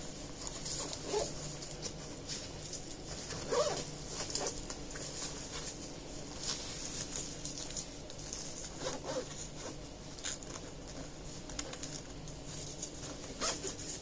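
Nike backpack being handled: zippers on its compartments pulled open and shut, and the fabric rustling, in short scattered bursts.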